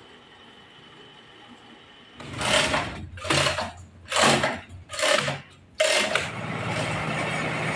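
Faint hum at first; about two seconds in, the chains of a manual chain hoist rattle in four or five rhythmic pulls, less than a second apart, as the hand chain is hauled to lift a large log. Near the end a steady machine noise starts abruptly.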